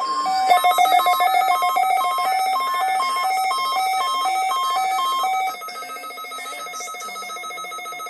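Weather alert radio's electronic alarm, a fast trilling tone that switches between two pitches about twice a second, like a ringing phone. It is loud for about five and a half seconds, then carries on more quietly.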